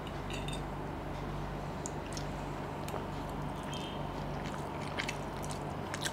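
Faint wet chewing and mouth clicks from a man eating a forkful of noodles, with a few scattered light ticks, over a steady low hum.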